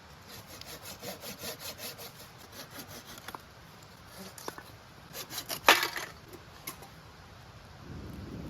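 Hand saw cutting through wood in quick, even strokes, about five a second, followed by a few knocks and a sharp crack of wood about six seconds in.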